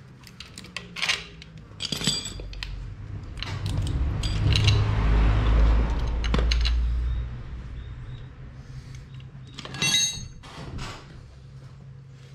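Metal tools and parts clinking and ringing during a gearbox repair, a few sharp strikes with a bright ring, and a loud low rumble lasting about three seconds in the middle.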